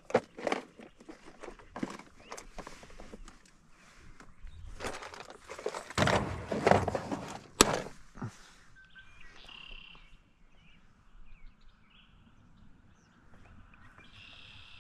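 Hands rummaging through a plastic tackle box and a soft tackle bag: irregular plastic clicks, rattles and rustling, loudest from about five to eight seconds in with a sharp click near the end of that stretch, then only light handling.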